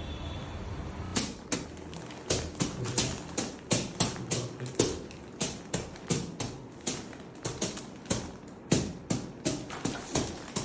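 Irregular tapping, like a child drumming with his hands on a hard surface, about three knocks a second, starting about a second in.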